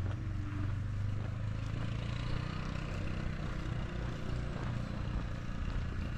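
A motor vehicle's engine running steadily, a low rumble with street noise around it.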